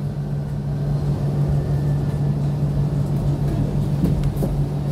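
KAMAZ-6282 electric bus running between stops, heard from inside the passenger cabin: a steady low rumble with a constant low hum, and a couple of faint knocks about four seconds in.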